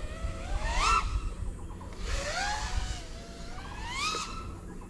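FPV quadcopter motors whining up in pitch, twice, over a low rumble.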